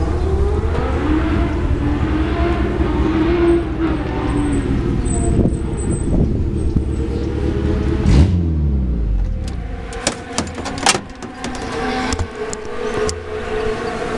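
Formula Monza single-seater's engine running while the car is stopped, its revs rising and falling. About eight seconds in the engine note drops away, followed by scattered clicks and knocks.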